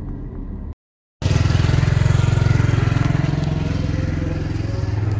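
Vehicle noise, then a brief total cut-out of sound about a second in. After it, a motorcycle engine runs steadily close by with a fast, even pulsing beat.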